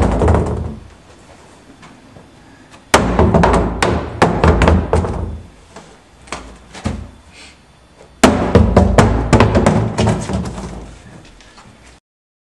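Three loud crashes a few seconds apart, made for a foley recording. Each is a sudden heavy impact followed by a couple of seconds of clattering and rattling that dies away. The sound cuts off abruptly near the end.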